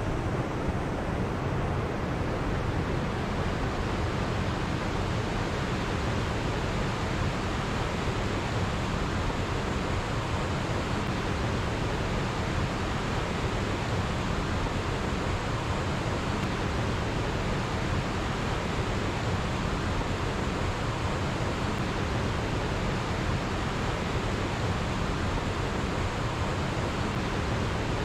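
Small waterfalls and a mountain stream rushing over rocks: a steady, even rush of water that does not change.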